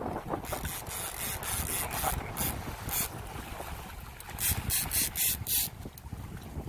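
Low wind rumble on the microphone, with short rasping rubs in irregular bunches; the loudest are four in quick succession about four and a half to five and a half seconds in.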